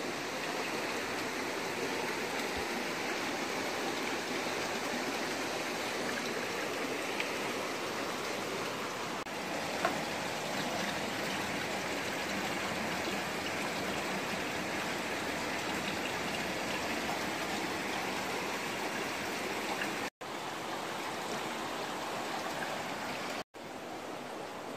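Water pouring from a pipe into a glass fish tank, a steady splashing on the water surface. It breaks off twice for an instant near the end.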